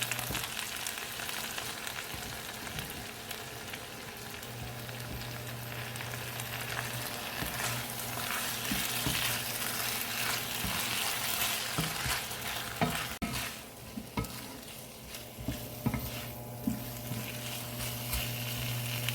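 Chicken with fresh basil and sesame oil sizzling in a pan as it is stir-fried, with a spatula scraping and knocking against the pan. The sizzle eases about two-thirds of the way through, and the knocks stand out more after that.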